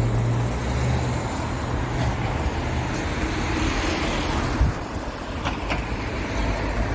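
Road traffic: cars driving along a town street, a steady rush of tyres and engines with a low hum underneath. A brief thump about four and a half seconds in.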